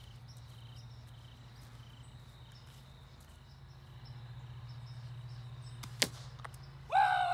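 A single sharp crack about six seconds in: a Daisy Red Ryder BB rifle shot at an aspirin tablet on a wooden post. About a second later a man lets out a loud whooping shout.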